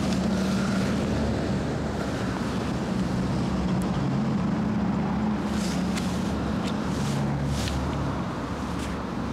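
A steady low mechanical hum, like a running engine, with humming tones that shift slightly now and then, and a few faint ticks.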